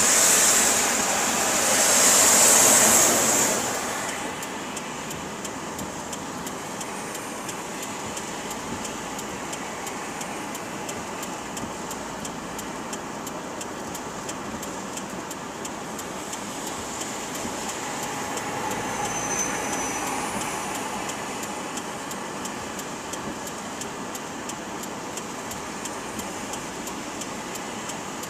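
Steady rain-and-engine noise inside a stopped car's cabin on a flooded road. Two loud swishes come in the first four seconds as the windshield wipers sweep the wet glass, and a softer swell follows around twenty seconds in.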